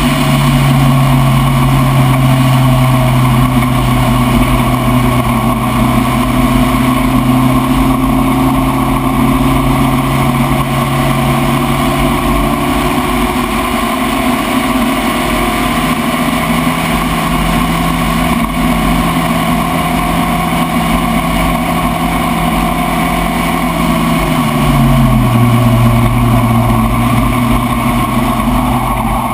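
Spec Racer Ford race car's four-cylinder engine running hard and steady. Its pitch steps up about halfway through, then falls away smoothly near the end.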